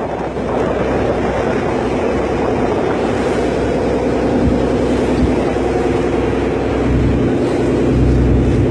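A ferry's engine running steadily, heard from the deck as a droning hum, with a deeper rumble growing stronger about seven seconds in.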